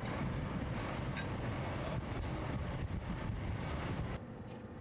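Low outdoor rumble with wind buffeting the microphone, which drops away suddenly about four seconds in to a quieter background.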